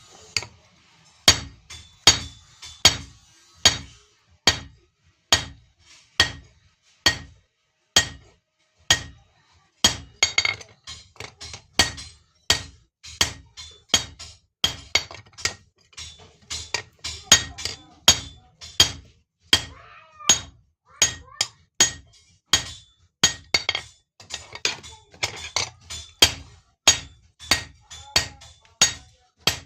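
Blacksmith's hand hammer forging iron on an anvil: a steady run of blows, about one and a half to two a second, each with a short metallic ring.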